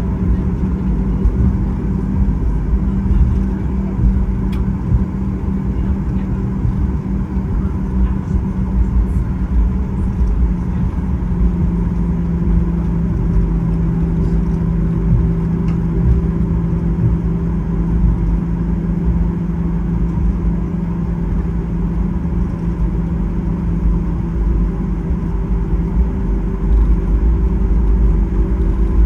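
Steady low rumble of a vehicle heard from inside, with engine tones that shift pitch a little partway through and again near the end.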